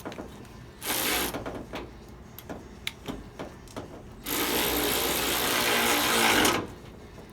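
Power tool running in two bursts: a short one about a second in and a longer one of a bit over two seconds near the middle, with small clicks and knocks of handling between them.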